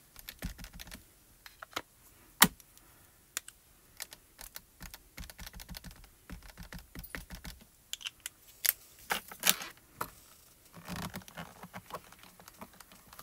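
Irregular light clicks and taps of plastic on plastic: a mini ink cube being dabbed onto a clear stamp and a stamping platform being handled and pressed down. A sharper knock comes about two and a half seconds in, and a run of louder clicks comes near the nine-second mark.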